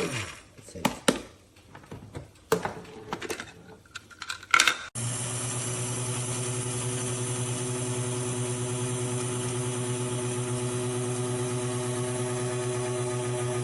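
Plastic clicks and knocks as an electric blade coffee grinder is handled, then about five seconds in its motor switches on abruptly and runs with a steady hum and whir.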